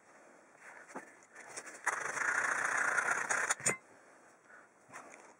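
Hand file rasping on copper electrode rods, a run of strokes lasting about two seconds in the middle, ending with a sharp knock. Faint handling clicks before and after.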